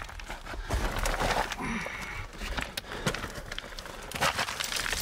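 Scraping and rustling of a person's body, gloves and camera gear against rock and loose gravel while squeezing feet-first into a narrow mine opening, with scattered clicks and knocks of shifting stones.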